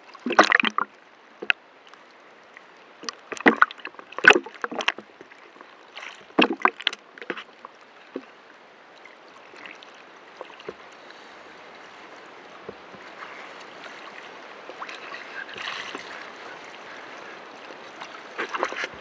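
Choppy sea water splashing and slapping at the surface in sharp, irregular bursts for the first half. It then gives way to a steadier rushing hiss of water that slowly swells.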